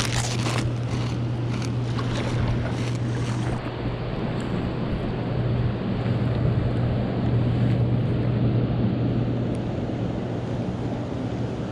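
Wind buffeting the microphone and water around a kayak, a steady rushing noise with a constant low hum underneath. In the first few seconds, short crunches of someone chewing Funyuns corn snacks.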